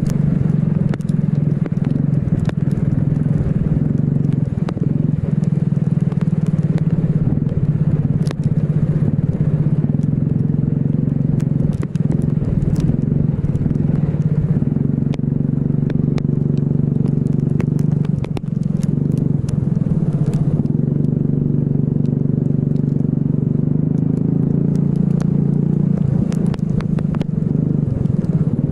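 Racing kart engine running hard around a circuit, its pitch easing off and picking up again a few times, with brief dips about twelve and eighteen seconds in.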